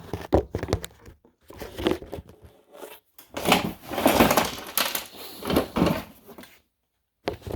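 Rustling and crinkling handling noise in irregular bursts, loudest in the middle, with a sudden dead-silent gap near the end.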